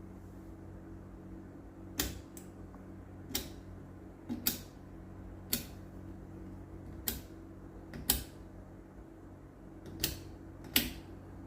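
Selector switches of a Jackson 103 tube tester being clicked into position one after another: about ten sharp, separate clicks over a steady low hum.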